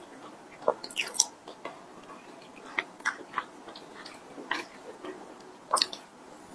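Close-miked chewing of mooncake, with sharp wet clicks at irregular moments about a second apart and a bite near the end.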